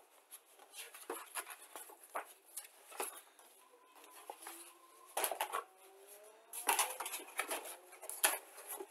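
Cardboard model-kit box being handled on a desk: irregular taps, rubs and scrapes as the box and its lid are moved and set down, busiest in the second half, with a short rising squeak about halfway through.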